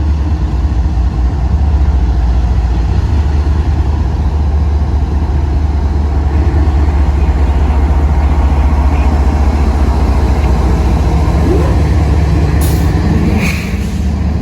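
Diesel freight locomotive engine running steadily at close range, a loud low drone. A few short, sharp high sounds come near the end.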